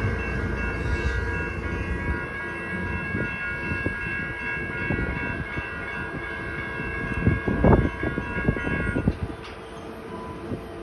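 Caltrain commuter train pulling away from the station, its low rumble dropping off about two seconds in. Steady high ringing tones sound over it and stop about nine seconds in, and there are a few sharp knocks around the eight-second mark.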